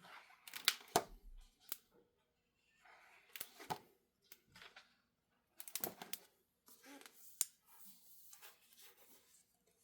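Pages of a large, heavy book being turned by hand: soft paper rustling with several sharp slaps and clicks as the pages flip over and settle.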